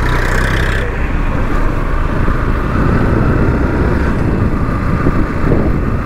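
Motorcycle on the move: steady engine and road noise mixed with wind rushing over the microphone.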